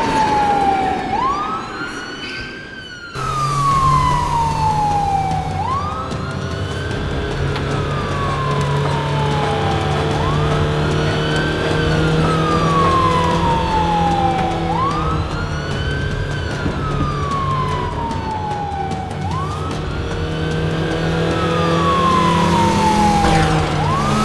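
Police car siren wailing, each cycle rising quickly and then falling slowly, repeating about every four and a half seconds, over a steady low hum. The sound jumps suddenly louder about three seconds in.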